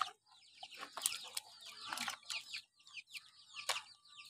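Chickens clucking, with many short, high, falling chirps. A few sharp clicks and splashes come from a hand rummaging through fish and snails in a basin of water.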